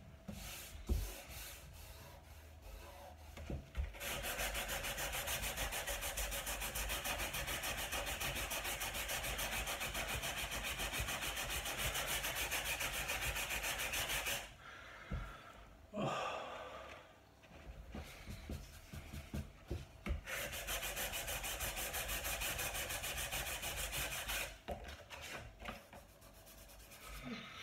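Sandpaper rubbed by hand over a wooden tabletop in quick back-and-forth strokes, in two long runs of about ten and four seconds with short knocks and pauses between them. The sanding is over an old filled groove, where the sound shows whether the filler is sound: a rough sound would mean it has come loose.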